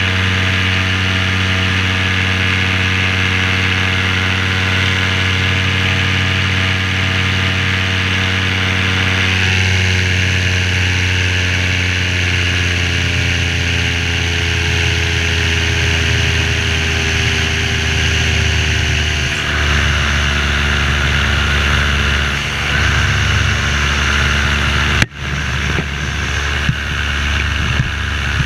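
Parajet V3 paramotor's two-stroke engine and propeller running steadily at power, the engine note easing slowly lower about a third of the way in and then holding steady. A single sharp click comes near the end.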